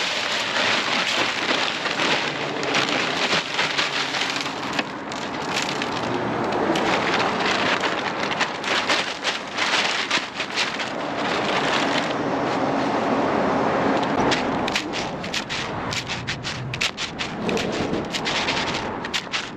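Rock salt pouring and sliding from a bag into a tow-behind spreader's hopper: a steady, rain-like granular hiss with scattered ticks and crackles, which grow denser near the end.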